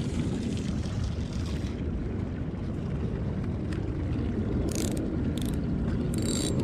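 Steady wind noise on the microphone. About five seconds in and again near the end come short, high clicking rattles from a spinning reel and line being handled.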